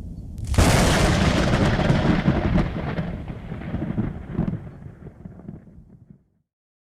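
Thunder: a low rumble, then a sudden loud crack about half a second in, followed by a long rumble that fades away and cuts off about a second before the end.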